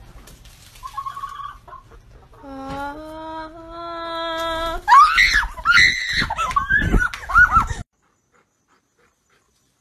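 A woman's voice and a pet hen perched on her shoulder. There is a short call about a second in, then a long held sung note, then a run of loud, high, wavering shrieks and squawks. The sound cuts off abruptly near the eight-second mark.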